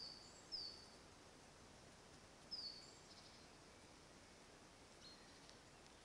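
Small woodland bird calling: three short high chirps, each dropping slightly in pitch, in the first three seconds, then a few fainter notes, over a faint steady hiss.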